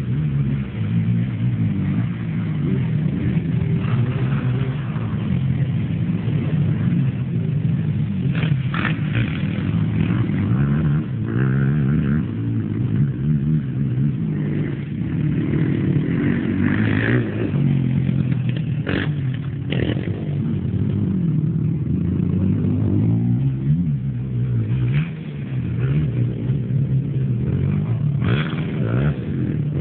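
Engines of off-road racing machines on track, revving up and down as they accelerate and back off, with a few short sharp clacks along the way.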